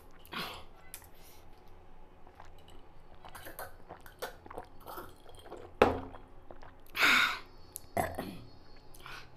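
Mouth sounds of a man eating very spicy panipuri and drinking to cool the burn: chewing and sipping noises, a sharp knock about six seconds in, then a loud hissing breath out about a second later.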